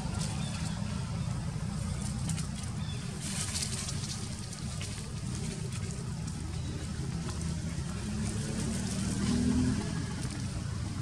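Steady low rumble with a faint hiss above it, and no distinct event standing out.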